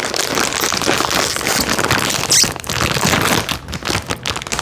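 Plastic snack-chip bag crinkling and crackling as it is handled and opened.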